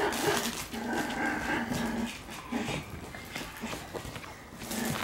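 Black Shiba Inu puppy making drawn-out, wavering whining growls, several in a row, the longest in the first two seconds, among light knocks and scratches.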